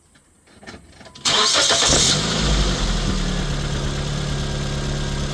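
2006 Nissan Sentra 1.8 L four-cylinder engine cranked by the starter about a second in, catching within a second and settling into a steady idle. It starts and runs on a newly replaced crankshaft position sensor.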